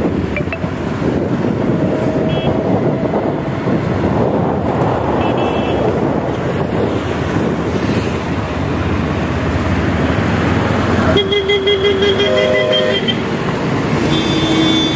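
Busy road traffic, with vehicle horns honking over it: short beeps about 2 and 5 seconds in, a longer horn blast of about two seconds about two-thirds of the way through, and another near the end.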